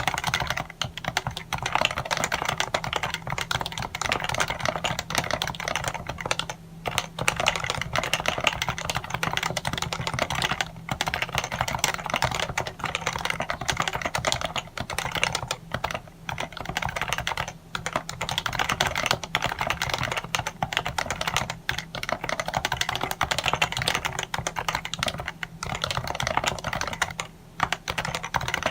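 Fast, continuous typing on a Happy Hacking Keyboard Professional 1 with Topre switches, with short pauses here and there. Under it runs a faint steady low hum.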